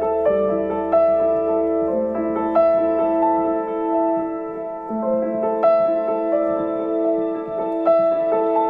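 Background music: a slow, soft piano melody with sustained notes struck about once a second. A low hum underneath stops about three and a half seconds in.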